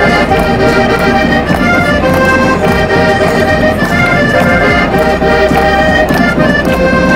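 Button accordion playing a lively tune, with several people clapping their hands along.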